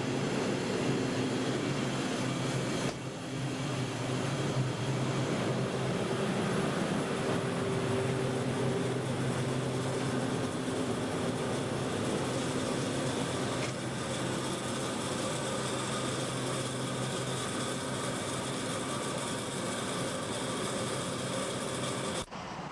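A steady droning noise with a low hum, like a running vehicle or machine, dipping briefly about three seconds in.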